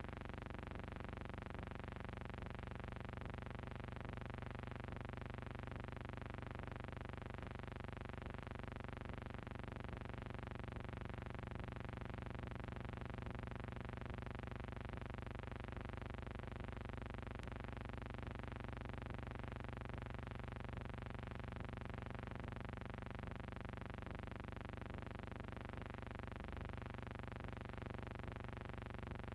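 A steady, unchanging droning hum with many overtones.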